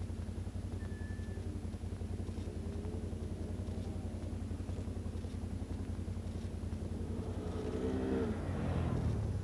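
A motor vehicle's engine running over a steady low rumble, growing louder and dropping in pitch about eight seconds in as it passes.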